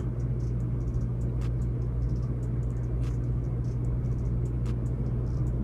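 Steady low electrical hum under a faint hiss, with a few soft clicks.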